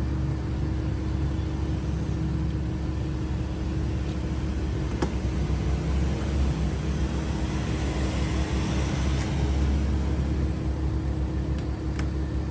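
A steady low mechanical hum, engine-like, in the background. Sharp metallic clicks come about five seconds in and again near the end as jumper-cable clamps are handled.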